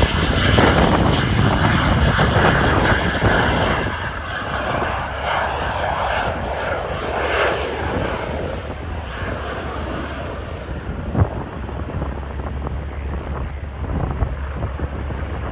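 Twin Pratt & Whitney PW615F turbofans of a Cessna Citation Mustang at takeoff power as the jet rolls, lifts off and climbs away. A high whine drops slightly in pitch in the first few seconds, and the engine noise is loudest early and then fades gradually.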